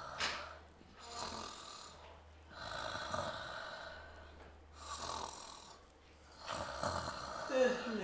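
A person snoring: a string of rasping breaths, about one every one to two seconds, with a pitched, falling tone near the end.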